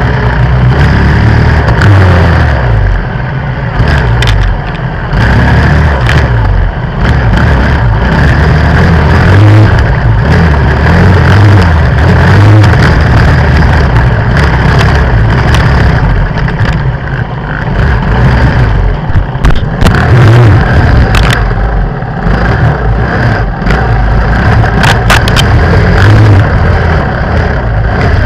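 Dirt bike engine running and revving on and off as the bike rides a rough trail, heard close to the rear wheel. There are scattered sharp knocks and clatters, more of them in the second half as the bike pushes through tall grass and brush.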